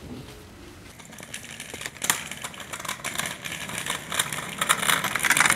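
Two kick scooters' small hard wheels rolling over rough, cracked asphalt: a rattling, clicking rumble that starts about a second in and grows louder as the scooters come closer.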